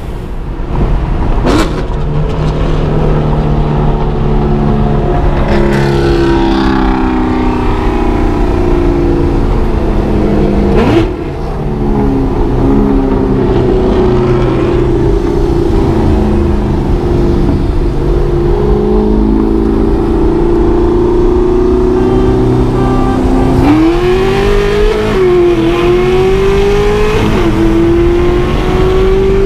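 Mercedes E55 AMG's supercharged V8 pulling hard under full throttle, heard from inside the cabin. Engine pitch climbs steadily and drops at each shift, with a brief dip in loudness around eleven seconds in and several quicker rises and drops near the end.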